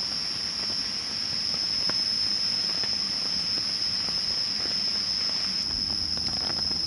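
Steady high-pitched trilling of crickets and other night insects, over a crackling, bubbling hiss from a pot of tom yum soup boiling hard.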